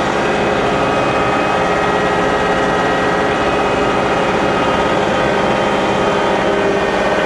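John Deere 2038R compact tractor's three-cylinder diesel engine running steadily at an even pitch while plowing snow.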